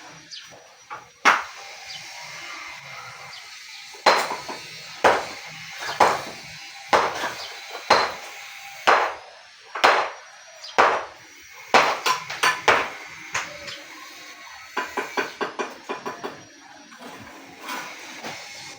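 A hammer striking repeatedly, about one blow a second, with a quick run of lighter taps after the steady blows.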